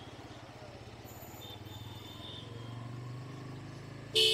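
Bajaj Pulsar N160's single-cylinder engine running steadily at low speed as the motorcycle rolls along. A loud horn beep starts right at the end.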